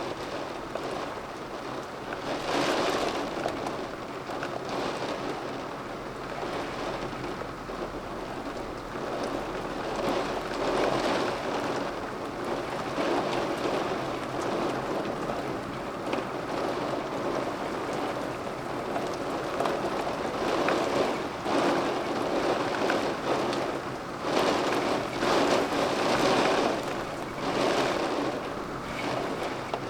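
Rainstorm: steady rain noise that swells and eases in gusts every few seconds.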